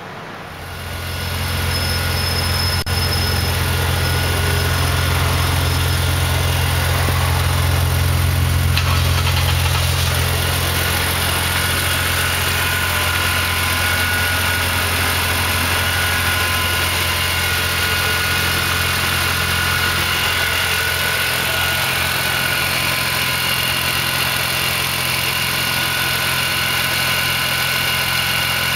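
BMW Z4 M's supercharged straight-six engine idling steadily. The engine sound comes up about a second in and then holds an even, steady idle.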